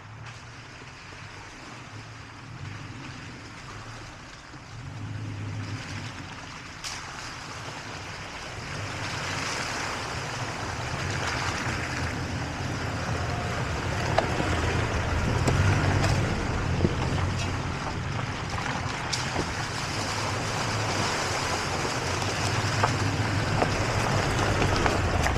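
Two Toyota Tacoma pickups crawling up a rutted dirt trail, engines running at low speed and growing louder as they come closer. Occasional sharp cracks and knocks come from tyres rolling over rocks and sticks.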